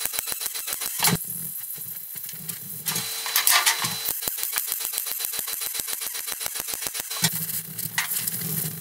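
MIG welder arc crackling in rapid, even ticks as the roll cage foot plates are welded to thin flat floor steel. A low hum comes in about a second in and again near the end.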